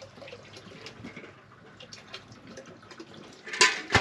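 Harbour water lapping and dripping against the boat hull and the wooden dock, with small irregular splashes. Near the end comes a loud brief rustle and then a sharp knock.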